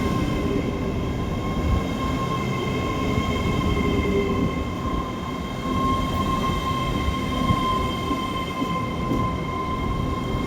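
Great Western Railway Class 800 train running through the station: a steady rumble with a high whine held at several pitches throughout.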